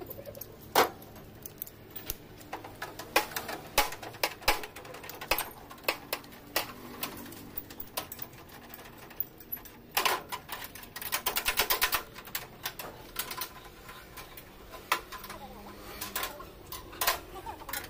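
Irregular sharp clicks and metallic knocks of hand tools at work on a jeep, with a fast run of clicks about ten seconds in.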